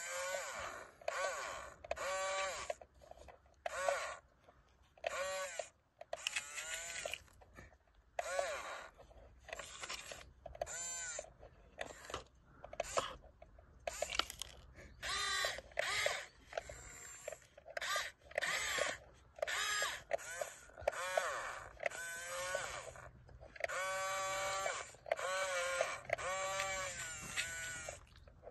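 A high-pitched voice making a long series of short calls, each arching up and down in pitch, with brief pauses between them.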